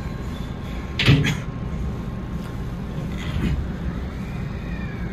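Hankyu electric train running on the rails: a steady low rumble with a sharp clunk about a second in and a softer knock a little after three seconds. Near the end a faint whine rises and falls.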